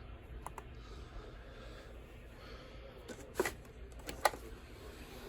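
Dead air: a faint steady low hum and hiss, broken by two sharp clicks a little under a second apart in the second half.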